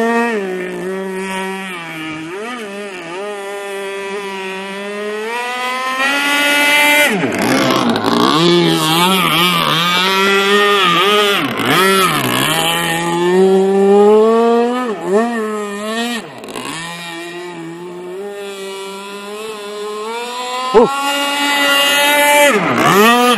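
Modified Zenoah 30cc two-stroke petrol engine of a radio-controlled racing boat running at high revs, its pitch repeatedly dropping and climbing back as the throttle is eased and opened again, with several deep dips around the middle and near the end.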